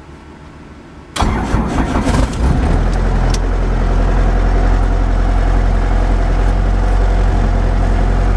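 Robinson R22 helicopter's four-cylinder Lycoming piston engine starting: it fires suddenly about a second in, runs unevenly for a second or so, then settles into a steady idle.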